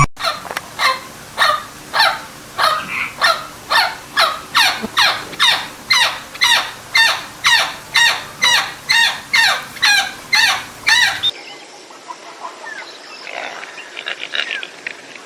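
An animal, likely a bird, calling over and over, about two short calls a second. About eleven seconds in, the sound cuts to a quieter stretch with a few fainter calls.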